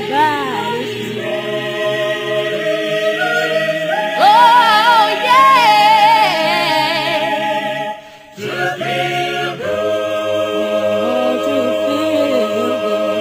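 Background music: voices singing in sustained harmony, with a higher voice wavering over them about four seconds in. The singing breaks off briefly about eight seconds in, then the held chord returns.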